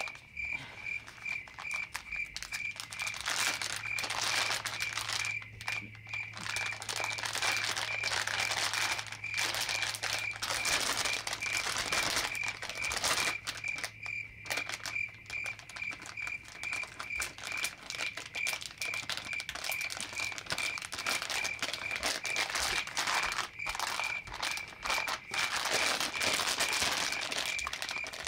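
Foil blind-bag pouches crinkling and rustling as hands handle and open them. A steady high beeping repeats in the background throughout.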